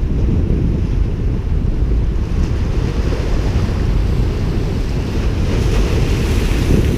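Wind buffeting the microphone over waves washing and splashing against the rocks; the splashing grows louder in the second half.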